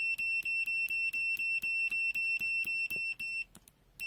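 ANENG 622B multimeter's continuity beeper sounding a high steady beep, chopped into rapid pulses about five a second, which stops briefly near the end and starts again.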